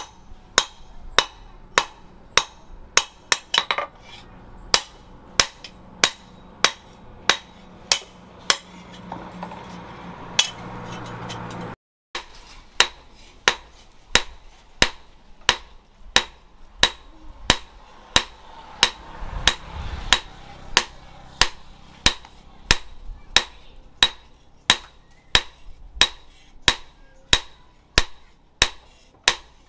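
Hand hammer striking a steel knife blade on a steel post anvil in steady blows, about one and a half a second, each with a short metallic ring. The sound drops out briefly about twelve seconds in, and the hammering then carries on at the same pace.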